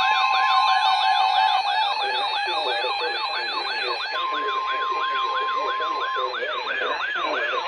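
Several NOAA weather radios sounding their alert alarms together for a severe thunderstorm warning. A fast, repeating siren-like sweep, about three a second, plays over steady alarm tones. The steady 1050 Hz warning tone drops out about a second and a half in and comes back for a couple of seconds past the middle.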